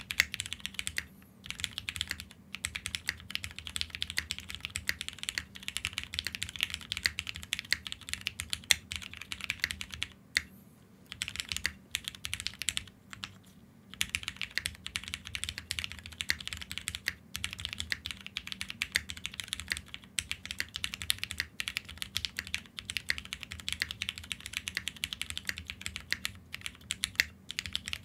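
Fast, continuous typing on a Wind Studio Wind65 custom mechanical keyboard: a dense run of keystrokes, with a couple of brief pauses about ten and thirteen seconds in.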